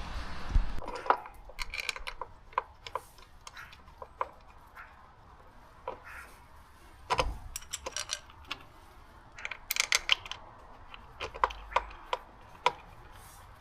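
Small metal parts and hand tools clicking and clinking as they are handled, in irregular single ticks and a few quick clusters of taps.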